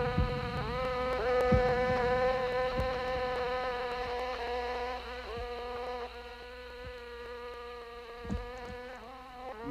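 Buzzing of a flying insect: a steady, slightly wavering drone that slides up in pitch as it restarts a few times. Several soft low thumps, the strongest about eight seconds in.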